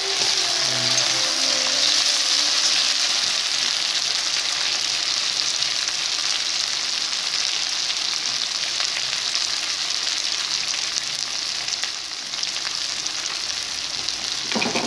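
Sliced tomatoes, onion and garlic sizzling steadily in hot oil in a kadai (Indian wok), stirred with a metal spatula.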